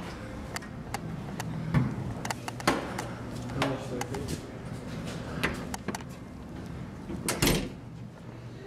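Walking and door noise: scattered knocks and clunks of doors and footsteps, the loudest near the end, over a steady low hum.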